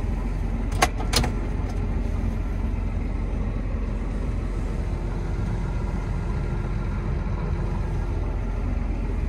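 John Deere 7820 tractor's diesel engine running steadily, heard from inside the cab. Two short sharp clicks come about a second in.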